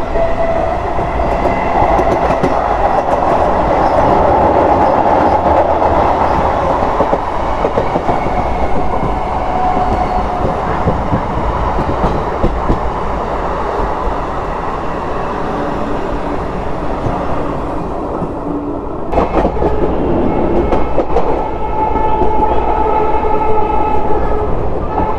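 Old ICF passenger coach running at speed, heard from its open door: steel wheels rumbling and clattering over the track. Near the end a train horn sounds as a held, steady tone over the running noise.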